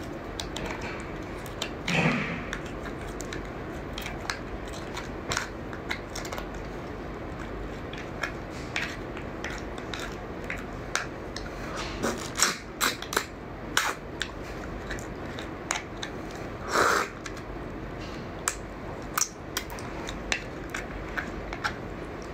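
Raw crab being eaten by hand: scattered small cracks and clicks of the shell being broken and pulled apart, with chewing and sucking at the meat. A few louder, longer sounds come about two seconds in, around twelve to thirteen seconds, and near seventeen seconds.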